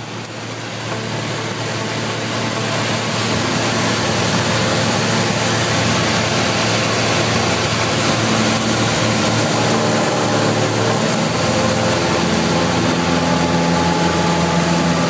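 Cessna 180 Skywagon's six-cylinder piston engine and propeller running steadily in flight, heard from inside the cabin with a wash of air noise. Its note shifts about two-thirds of the way through.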